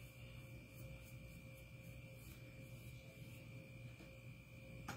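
Near silence: room tone with a faint, steady hum.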